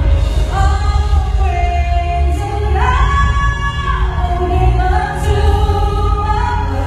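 Music with singing: long held vocal notes over a steady bass, the melody climbing about three seconds in and dropping back about a second later.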